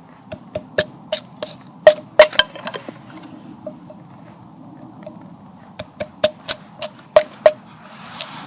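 Small dead wood being split at camp: two runs of sharp woody knocks, roughly three or four a second, with a pause of about three seconds between them.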